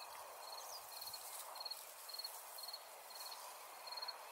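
Faint ambience of an insect chirping in short, evenly spaced chirps, about two a second, over a soft steady hiss.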